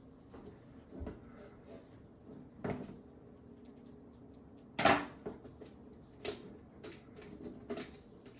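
A metal Pokémon trading-card tin being handled: a few scattered clunks and clicks, the loudest about five seconds in.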